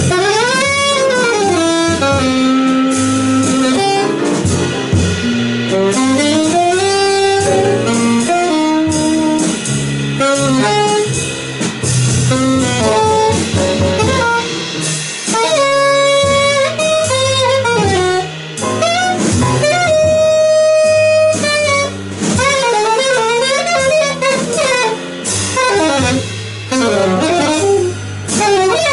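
An alto saxophone improvising a solo in live small-band jazz, one melodic line that bends and leaps between notes, over piano, upright bass and drums.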